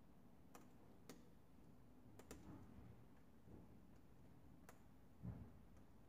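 Near silence: room tone with a few faint, sharp clicks scattered through and a soft low thump about five seconds in.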